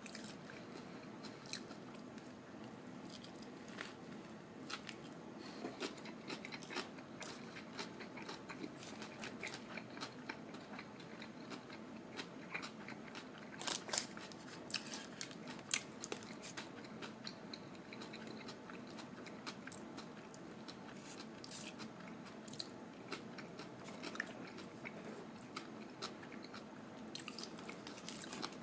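Close-up chewing and biting of a fish sandwich: wet mouth sounds with many small crunchy clicks, a louder bite about halfway through.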